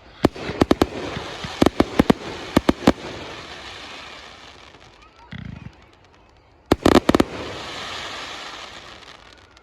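Aerial fireworks going off: a rapid string of sharp bangs over the first three seconds trailing into crackling, a short dull thump just past halfway, then a second tight cluster of bangs about seven seconds in followed by a long crackling hiss.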